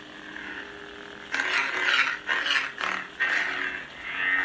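Custom lightsaber's Proffie sound board playing its steady blade hum through the hilt speaker, then about a second in, four loud swing whooshes in quick succession as the saber is moved.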